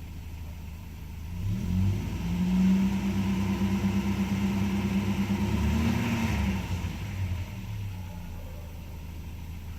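Mercedes 190E 2.0's four-cylinder engine idling, then revved up about a second and a half in and held at raised revs for several seconds before settling back to idle. The throttle is held open so that the natural gas conversion will switch over from petrol.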